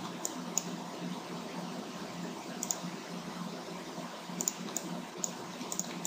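Computer mouse buttons clicking, a scattering of short sharp clicks at irregular spacing, some in quick pairs, over a steady low hum of room and microphone noise.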